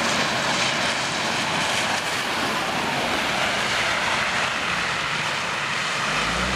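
Fire engine's diesel engine running as it passes close by and drives on into flood water on the road, over the steady rush of a swollen river. Near the end its low engine note grows stronger as its wheels throw up spray in the water.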